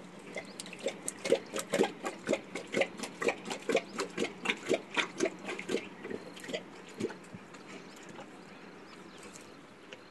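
Asiatic lion lapping water from a trough: a quick, steady run of wet laps, about four a second, that dies away about seven seconds in.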